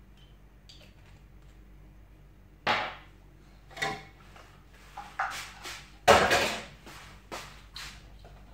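Kitchen items being handled and set down on a countertop: a series of short knocks and clatters after a quiet start, the loudest about six seconds in.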